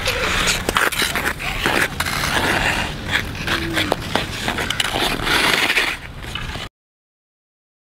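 Ice skate blades scraping and cutting across rink ice, with scattered short knocks; the sound cuts off suddenly near the end.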